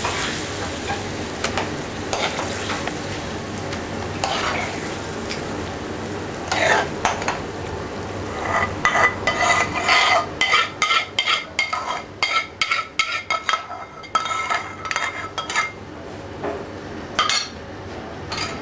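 Madras curry sizzling in a pan as it is stirred. About halfway through, a ladle starts clanking and scraping against the pan in quick strokes with a slight metallic ring. This lasts several seconds, and there is one more knock near the end.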